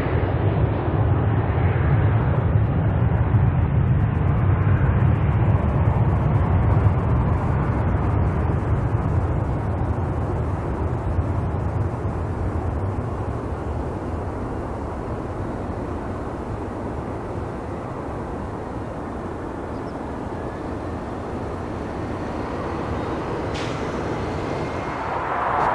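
Twin rear-mounted turbofans of a Bombardier Challenger 350 business jet on its takeoff roll: a low, steady jet rumble that slowly fades as the aircraft moves away down the runway.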